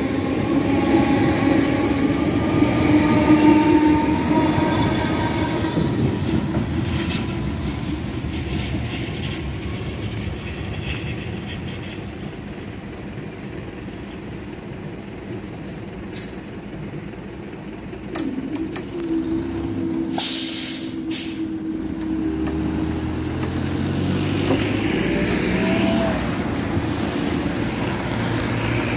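Merseyrail electric train pulling away, its traction motors giving a whine that rises in pitch for the first few seconds and then fades. In the second half, road vehicles start up and drive over the level crossing, with engine notes rising as they move off.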